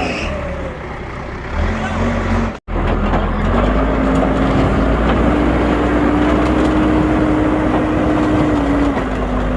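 Heavy diesel engine of a bulldozer working, its pitch rising as it revs up about four seconds in, holding, then easing off near the end.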